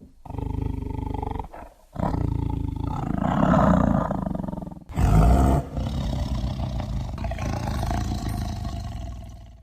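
Tiger roaring and growling: three long, rough calls with short breaks between them, the last beginning loudest and trailing away.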